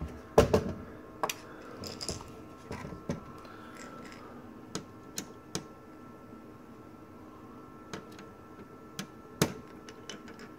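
Small clicks and taps of a screwdriver and hands working the screen-mounting screws on a Dell Mini 910 netbook. There are sharper clicks about half a second in and again near the end.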